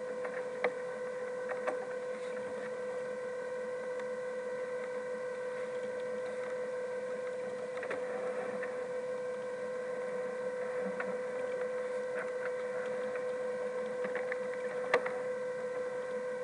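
A steady high-pitched hum with overtones, with a few sharp clicks and knocks of sailboat rigging hardware as the jib is lowered; the sharpest click comes near the end.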